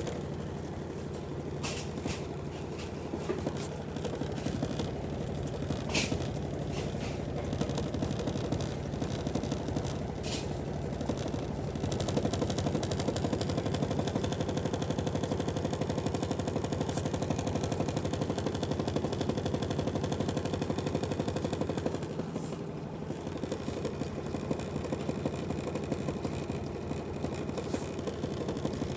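Washing machine running with a rapid, continuous banging and rattling. It grows louder for about ten seconds midway, with a few sharper knocks in between.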